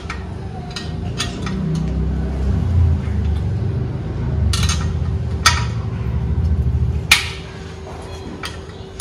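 Open-end spanner on a motorcycle's exhaust mounting bolts as they are loosened by hand: a few sharp metallic clinks of the tool against the bolts and bracket, over a steady low rumble.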